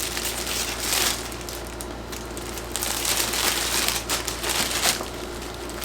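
Packaging crinkling and rustling as a folded t-shirt is handled and put back into it, loudest about a second in and again through the middle of the stretch.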